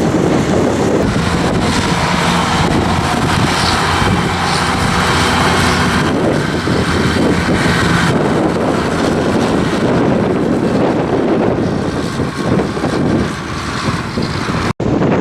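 Diesel tractor engine working under load while pulling a plough, running steadily, with wind buffeting the microphone.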